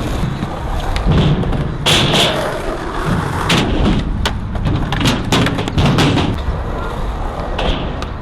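Skateboard wheels rolling on concrete under a steady rough rumble, broken by a series of sharp clacks and thuds as the board hits and lands.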